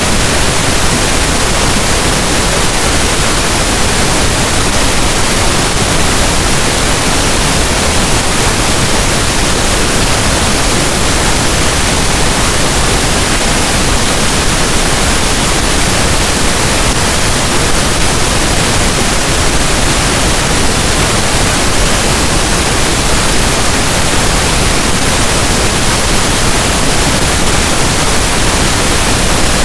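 Synthetic pink noise: a steady, loud, even hiss with no tones, changes or breaks.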